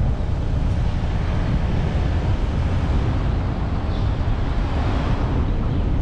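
Steady wind noise buffeting the microphone of a camera on a moving car, over a heavy low rumble of the car driving along the road.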